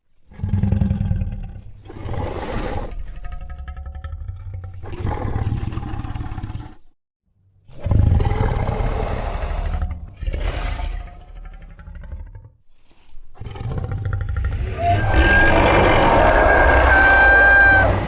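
Godzilla roar sound effects, several long roars in a row with short breaks between them. The last, starting about fifteen seconds in, is the loudest, with a high held tone running through it.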